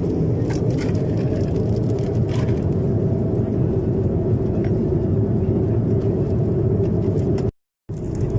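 Steady low rumble of cabin noise inside an airliner, with a few faint clicks. The sound cuts out completely for a moment near the end.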